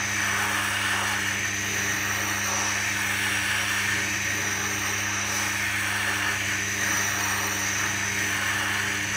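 Tormek wet grindstone running with a steady motor hum while the coarse side of a stone grader is pressed against the turning wheel, giving a steady gritty hiss of stone on stone. The wheel is being graded coarse, ready for heavy reshaping of a tool.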